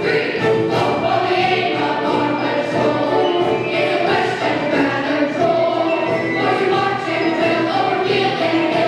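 A group of children singing together over accompanying music, as a stage musical number.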